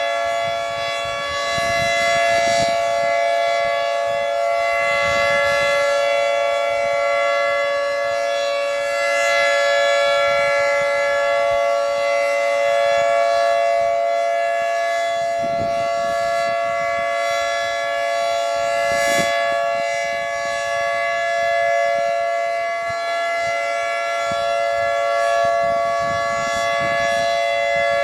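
Federal Signal 2T22 dual-tone outdoor warning siren sounding a steady Alert signal, the tornado-warning cycle, as a held chord that swells and fades slightly in loudness. A Thunderbolt 1000T siren sounds along with it in the distance.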